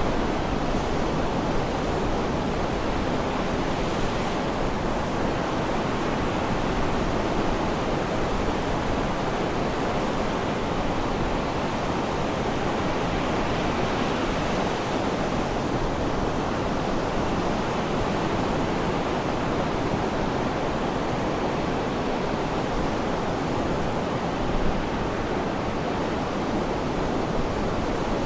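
Sea surf washing steadily, an even continuous hiss without distinct wave breaks.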